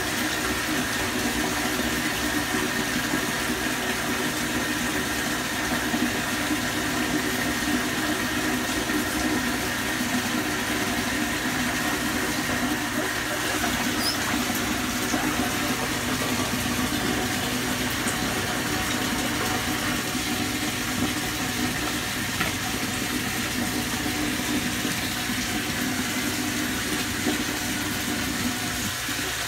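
Bathtub tap running steadily, water pouring into the tub as it fills.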